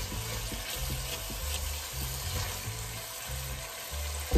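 Ginger-garlic spice masala frying in oil in a pot with a faint sizzle, stirred with a silicone spatula, at the stage where the oil has begun to separate. Background music with a steady bass line plays under it, and a sharp knock comes near the end.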